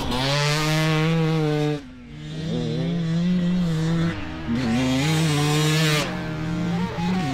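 Husqvarna TE300i's fuel-injected 300cc two-stroke engine revving hard as the dirt bike is ridden on a motocross track, held at high revs and briefly shut off about two seconds in, and twice more around four and six seconds in, before pulling again.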